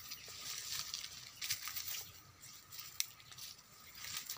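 Dry leaves and twigs rustling and crackling, as from stepping or pushing through dry bamboo litter, with a sharp snap about three seconds in.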